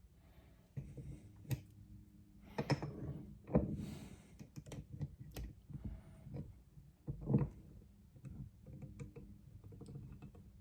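Scattered light clicks and knocks of small metal bicycle parts being handled and fitted by hand, a dozen or so irregular taps spread through the stretch.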